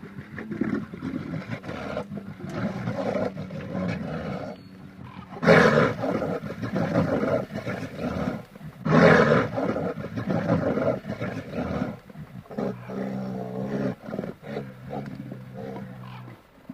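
Lion growling steadily, with two loud roars about five and a half and nine seconds in, then a lower, steadier pitched growl from about twelve seconds in.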